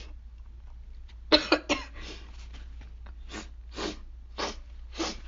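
A woman with a sick, hoarse voice coughing: two hard coughs a little over a second in, then a string of smaller coughs. The cough comes from an irritant she used to make herself sneeze catching in her throat.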